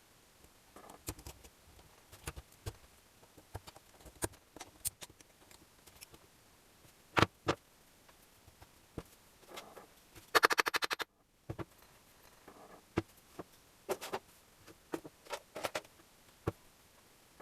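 Hand tools working on small engine parts: scattered light metallic clicks and taps, two sharper knocks about seven seconds in, and a fast run of clicks lasting under a second about ten seconds in.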